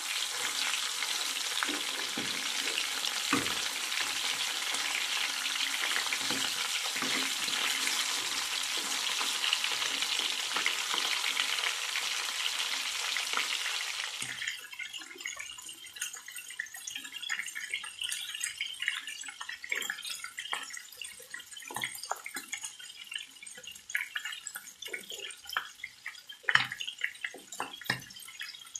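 Chicken drumsticks frying in hot oil in a pan: a loud, steady sizzle with the scrape of a spatula turning them, cutting off suddenly about halfway. After that, a quieter, scattered crackling and popping of the oil.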